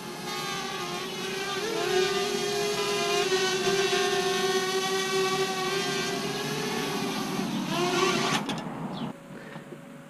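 Parrot Bebop quadcopter hovering, its four motors and propellers giving a steady whine that wavers slightly in pitch as it holds position. The whine cuts off suddenly about nine seconds in.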